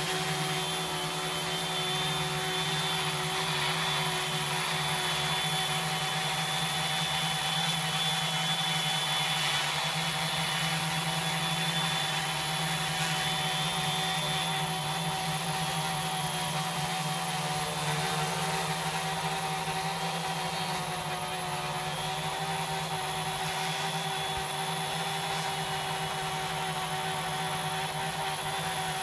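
Multirotor quadcopter's electric motors and propellers hovering: a steady buzz with several held tones, easing off slightly about two-thirds of the way through.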